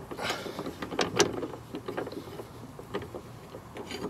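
Scattered light metallic clicks, taps and scraping as a bolt is threaded by hand into a sway bar mounting bracket, with a couple of sharper knocks about a second in.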